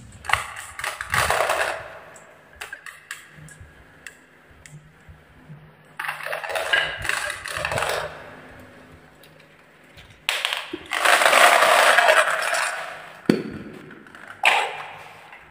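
Glass marbles rolling and clattering down a HABA wooden marble-run slope and into a toy container truck, in bursts: one about a second in, another around six seconds, a longer run from about ten to thirteen seconds, and a short one near the end.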